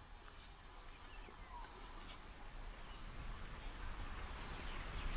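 Insects chirring steadily in grass, a fine rapid trilling that grows slowly louder, over a low steady rumble.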